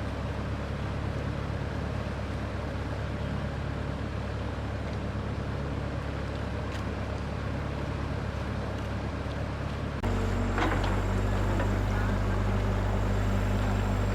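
Engine running steadily with a low hum. About ten seconds in, the sound jumps louder and deeper and stays there.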